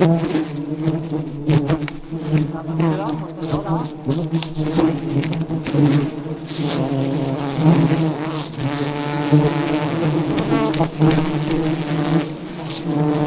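A large colony of wild honeybees buzzing around their hive, a dense steady hum of many wings, with a few sharp knocks mixed in.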